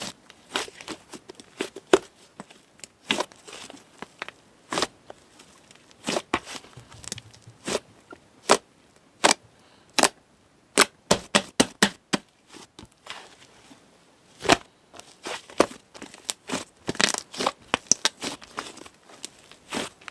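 Soft, chewy slime being squeezed and poked by hand, giving irregular clusters of sharp pops and crackles.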